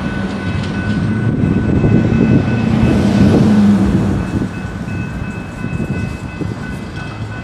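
Road traffic driving over a railroad grade crossing: a car and then a pickup truck pass close by with a low rumble that swells a few seconds in and eases as the truck moves off. Faint steady high tones run under it.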